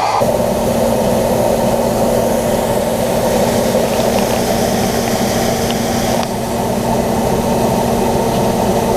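John Deere 9500 combine harvester running steadily under load, its engine and threshing machinery making a constant mechanical hum; the sound shifts abruptly about six seconds in.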